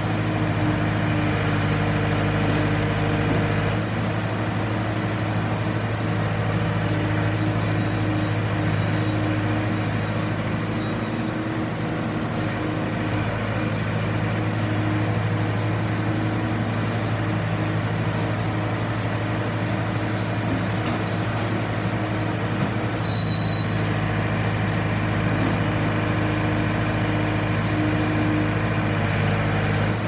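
Bobcat S250 Turbo skid steer's 3.3 L four-cylinder Kubota turbo diesel running steadily. About three-quarters of the way through there is one brief high squeal.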